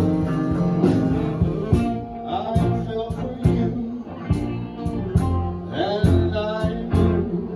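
Live swing band playing: drums keep a steady beat under guitar and bass, and a singer's voice comes in about two seconds in.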